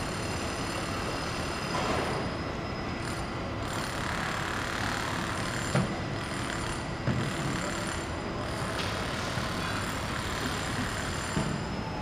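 Construction site ambience: a steady rumble of engines and heavy machinery with faint high-pitched whines, and a couple of short knocks about six and seven seconds in.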